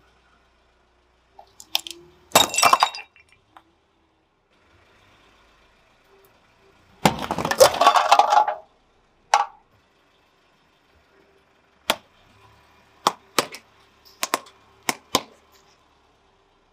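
Hard objects cracking and crunching as a car tyre rolls over them: sharp cracks about two and a half seconds in, a longer crunching from about seven to eight and a half seconds, then a run of sharp snaps near the end.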